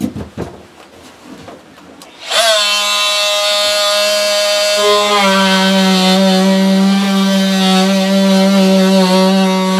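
Oscillating multi-tool starting about two seconds in, after a few handling knocks, and running with a steady high buzz as it cuts into the plywood shed floor. The sound grows fuller about five seconds in as the blade bites deeper.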